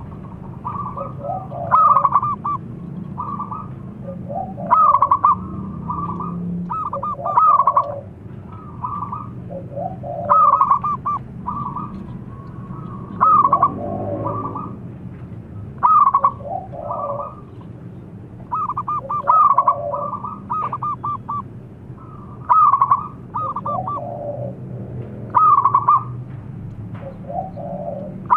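Zebra doves (perkutut) cooing: a loud stuttering, trilled coo phrase repeats about every three seconds, with softer, lower coos in between, over a steady low hum.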